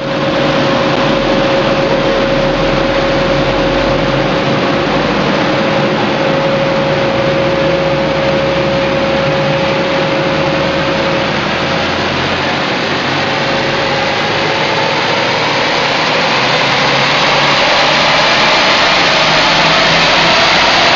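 Subaru Impreza's flat-four engine running at high road speed on a chassis dyno, its tyres spinning the rollers, making a loud, steady rush. The pitch and loudness climb slowly toward the end as speed rises.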